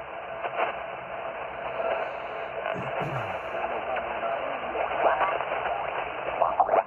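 HF amateur radio receiver hissing with band static through a narrow sideband passband, with a faint steady whistle of a carrier and snatches of weak, distant voices.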